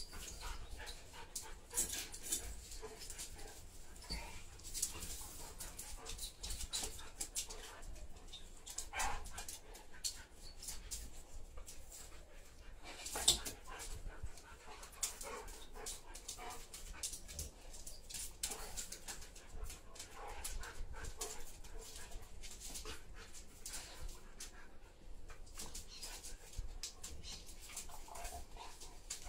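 A German Shepherd and a yellow Labrador-type dog play-wrestling on a tiled floor: scuffling, claws clicking, and small dog noises. One sharp knock about 13 seconds in is the loudest sound.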